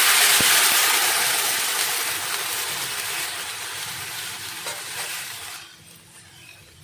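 Milk poured into a hot pan of ghee-fried vermicelli, hissing and sizzling as it meets the hot fat. The sizzle is loudest at first and dies away steadily, stopping about five and a half seconds in.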